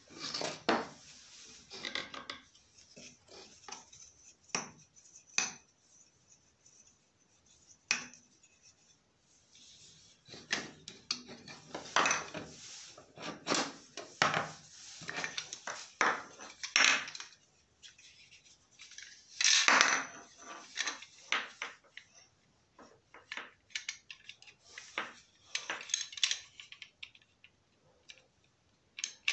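Irregular clinks, scrapes and knocks of metal and wooden gear being handled, in uneven clusters with short pauses, with a longer, louder scrape about two-thirds of the way through.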